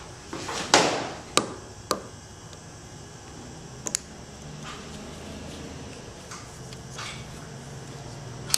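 Sharp clicks and taps of a small screwdriver and small parts being handled on a transmission control module during pressure-switch removal, with a short rustle about a second in, over a low steady hum.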